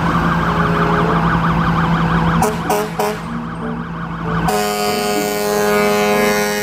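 Fire engine's siren yelping rapidly up and down, then three short horn blasts about two and a half seconds in, and a long steady horn blast from about four and a half seconds in.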